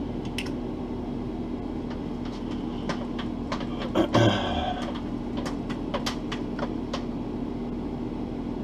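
A small electric motor hums steadily, with scattered light clicks and taps from handling the airbrush and lure, and a short clatter about four seconds in.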